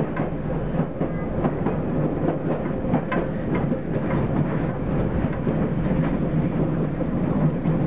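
Train running along the track, heard from the driver's cab: a steady rumble of wheels and running gear, with irregular clicks and clacks as the wheels pass over rail joints.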